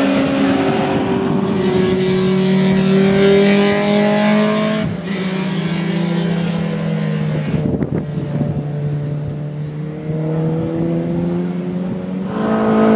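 Racing car engines running hard as cars pass on track, their pitch gliding slowly up and down. The sound changes abruptly twice, about five and eight seconds in.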